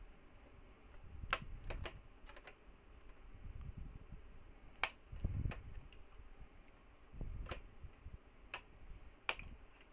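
Mini side cutter snipping plastic ribs and tabs out of a Huawei 5V5 router's plastic casing: about eight sharp snaps at irregular intervals, with low handling rustle between them.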